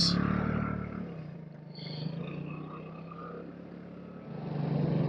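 A 2007 Vespa LXV 150 scooter's single-cylinder four-stroke engine running under way. The engine note drops off about a second in, stays low, and picks up again near the end.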